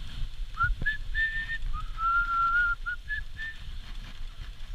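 A person whistling several clear notes, one of them held longer in the middle, over the low rumble of a dog cart's wheels rolling on a dirt forest trail.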